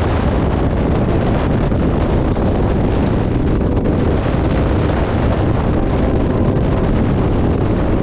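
Steady wind rushing over the microphone of a motorcycle riding at highway speed, mixed with the bike's running and road noise.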